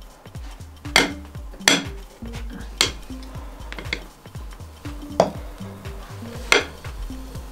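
Metal utensil clinking against a dish about five times at uneven intervals while whipped cream is spread on a cake, over background music with a steady beat.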